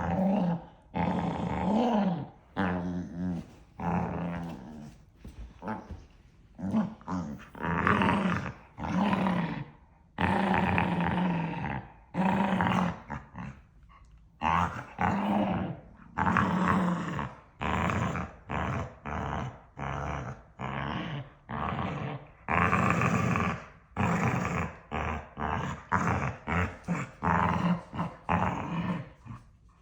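Dogs growling and yapping at each other in a play-fight, with no real aggression. It is a long run of growly outbursts that become shorter and quicker, about two a second, near the end.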